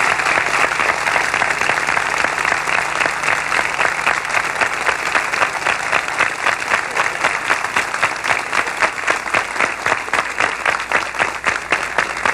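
A large crowd applauding. The clapping falls into rhythmic unison in the second half, at roughly two to three claps a second.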